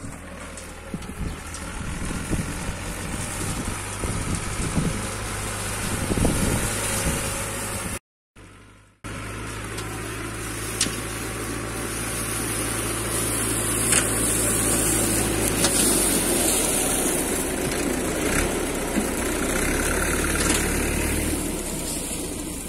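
Türk Fiat 70-56 tractor's four-cylinder diesel engine running steadily under load while its rear-mounted mower cuts grass. It grows louder as the tractor comes closer and drives past. The sound cuts out for about a second around eight seconds in, and a few sharp ticks follow.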